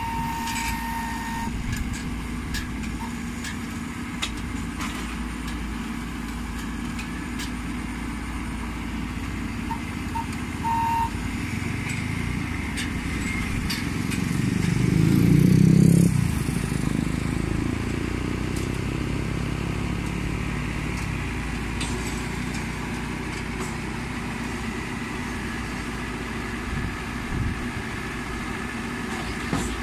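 Combine harvester's engine running steadily as the tracked machine creeps down steel loading ramps. About halfway through, the engine note swells to its loudest for a couple of seconds, then drops back abruptly and settles. A few light clicks and knocks come early on.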